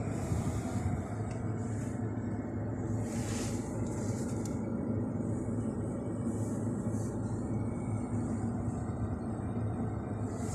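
Steady low rumble of a car heard from inside its cabin, engine and road noise, with a few soft hissy swishes now and then.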